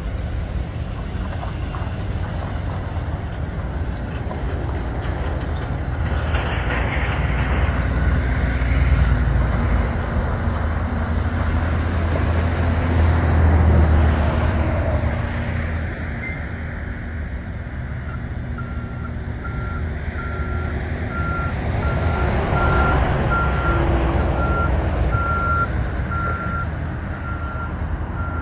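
A 1992 Ford F-150 pickup's engine running as the truck is driven across a gravel lot, growing louder about 9 and 14 seconds in. From about 18 seconds in, a backup alarm beeps steadily, about three beeps every two seconds.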